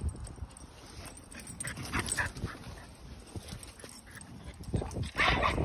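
Dogs playing chase, making short vocal sounds now and then, with the loudest near the end.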